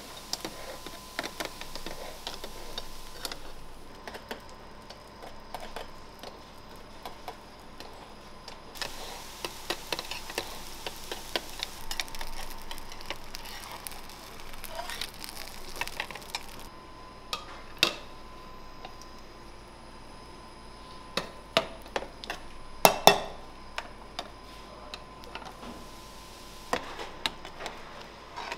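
Metal tongs and a spatula clicking, knocking and scraping against round metal künefe pans on gas burners, with a faint sizzle of the künefe frying. A few sharper metal knocks come about two-thirds of the way through.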